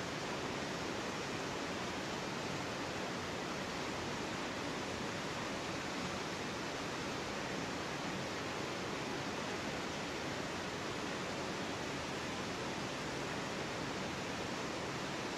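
Steady rushing noise of water spraying from a dredging pump's water jet ring and splashing down, even throughout.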